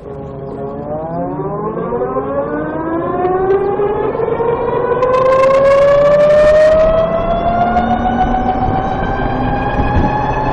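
Electric scooter's drivetrain whine, one tone with several overtones rising steadily in pitch as it accelerates, the transmission noise the owner is chasing, which he finds louder once the transmission is warmed up. A brief rush of noise comes about five to seven seconds in.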